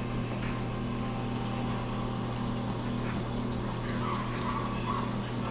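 Steady low hum with a wash of noise from a reef aquarium's running equipment, the circulation and return pumps moving water.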